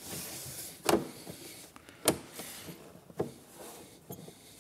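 Plastic side cowling of a John Deere 2038R compact tractor being pressed back into place by hand: a rub of plastic sliding over plastic, then three sharp knocks about a second apart as its tabs are pushed home into their slots.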